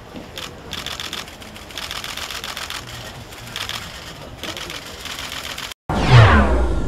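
Camera shutters firing in several rapid bursts of clicks. Near the end, a news logo sting cuts in: a loud whoosh that falls in pitch, with a low boom.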